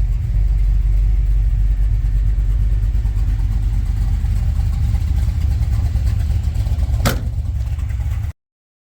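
LS V8 engine swapped into a 1961 Chevrolet C10 pickup, running with a deep, low sound. A sharp click comes about seven seconds in, and the sound cuts off abruptly about a second later.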